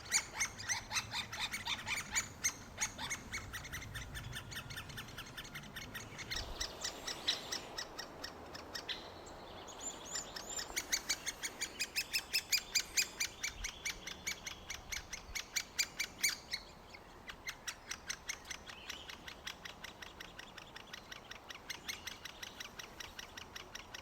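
Great spotted woodpecker nestlings, close to fledging, giving a long run of rapid, repeated high begging calls, several a second, loudest in the middle.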